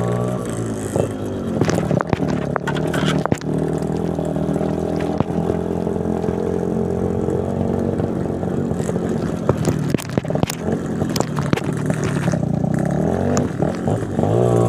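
Yamaha RX-King's single-cylinder two-stroke motorcycle engine running while riding, easing off just after the start, holding steady, then revving up again near the end. Frequent sharp knocks and rattles from the bike jolting over a stony road.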